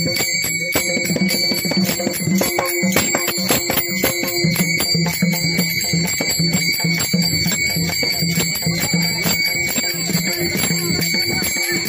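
Varkari bhajan music with hand cymbals (taal) ringing in a fast, steady beat.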